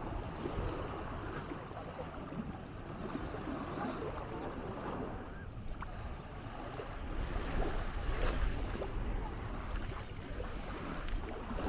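Beach ambience: small waves washing on the sand, with wind buffeting the microphone, heavier in the second half.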